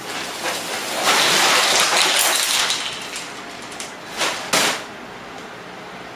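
Plastic containers rustling and clattering as they are handled: a loud stretch of rough crinkling noise over the first three seconds, then two short sharp rustles about four and a half seconds in.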